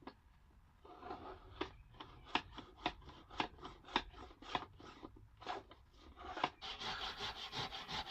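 A hand tool working wood in quick repeated scraping strokes, about two a second. The strokes become denser and more continuous near the end.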